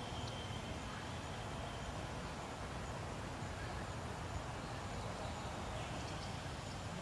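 Steady background noise with a low rumble and a faint, thin high-pitched tone above it; no distinct calls or knocks.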